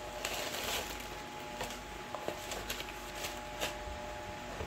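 A cardboard shipping box and plastic air-cushion packaging being handled during unpacking: scattered rustles, crinkles and light scrapes as the contents are lifted out.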